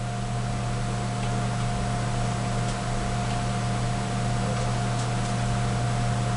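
Steady low hum with an even hiss and a faint, thin steady whine above it: the background noise of the recording, with no other sound standing out.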